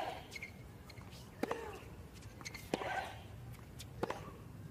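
Tennis rally: a racket strikes the ball three times, about 1.3 seconds apart, each sharp hit followed by a short grunt from the player.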